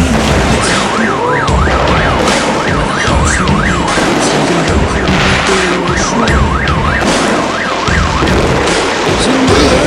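Dense, continuous crackling of firecrackers going off, with a siren-like whistle swooping up and down about twice a second in two stretches, the first about half a second in and the second about halfway through.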